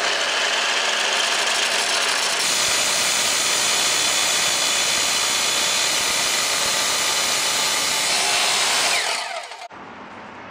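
Makita miter saw fitted with a 10-inch abrasive metal cutoff wheel, grinding steadily and loudly through a steel fence rail, throwing sparks. Near the end the motor is let go: the whine falls in pitch as the wheel winds down, and the sound drops away.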